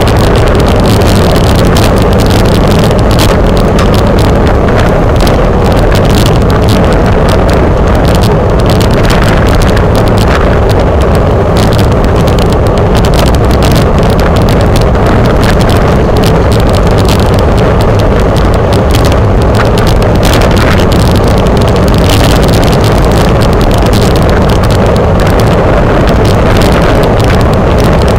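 Wind buffeting the microphone of a camera mounted on a racing bicycle at speed: a loud, steady rushing noise that does not let up.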